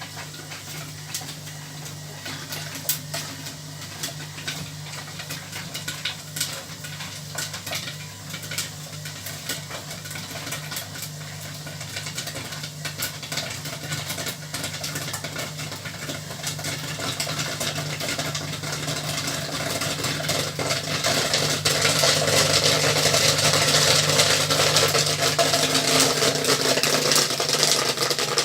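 Electric stirrer motor of a popcorn kettle humming steadily over a gas flame. Scattered kernel pops grow into dense, louder popping through the second half as the corn comes to the pop.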